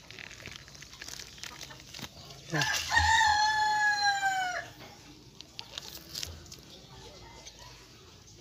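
A rooster crowing once: a single drawn-out call of about two seconds that starts some two and a half seconds in, its pitch sinking slowly toward the end.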